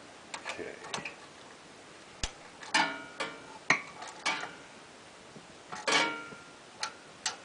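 Metal tools and engine parts clinking and tapping in an irregular run of sharp clicks. A few louder clanks ring briefly, about three and six seconds in.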